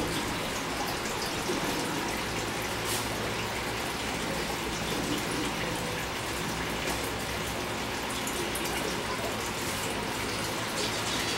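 Steady hiss with a faint low hum underneath and a few faint ticks.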